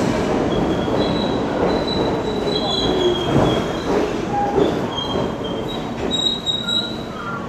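R46 subway train pulling into the station and slowing to a stop: a rumble that gradually eases, with several high-pitched squeals as it brakes.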